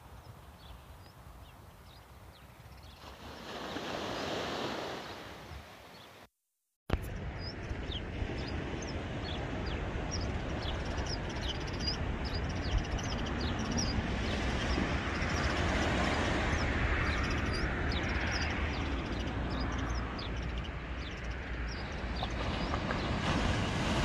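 Seaside ambience: surf washing onto the beach and wind rumbling on the microphone, with many short high chirps scattered over it. The sound drops out to silence for about half a second some six seconds in, then returns louder.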